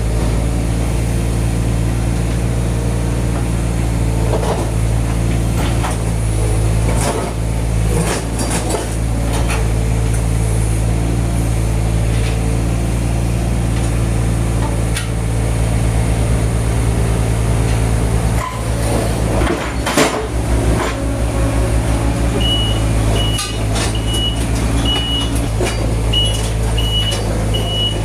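Heavy construction machine engine running steadily, with scattered knocks and clanks of work. Near the end a reversing alarm starts beeping repeatedly, about once a second.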